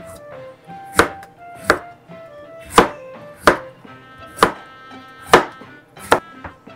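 Kitchen knife slicing a raw carrot on a cutting board: about eight sharp chops, roughly one a second, with light background music underneath.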